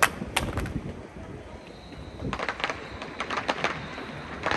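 Voices of a street crowd following a Mazu pilgrimage procession, with a couple of sharp pops right at the start of the kind made by firecrackers along the route.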